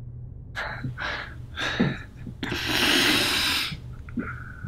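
A man breathing heavily: a few short breaths, then a long, loud exhale about halfway through.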